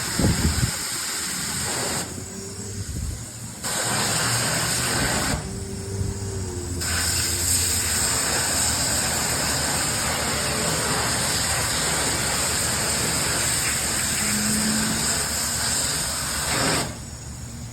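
Pressurised spray hissing in three bursts: one of about two seconds, a short one of under two seconds, then a long one of about ten seconds that stops sharply near the end. A low thump comes at the start.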